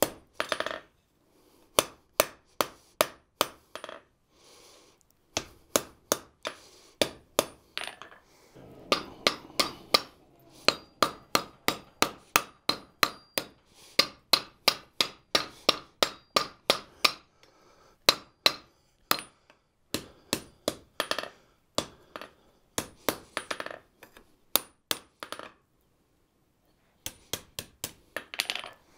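Blacksmith's hand hammer striking red-hot steel on an anvil while forging a tong jaw: runs of quick blows, about three a second, with brief pauses, the anvil ringing after the strikes.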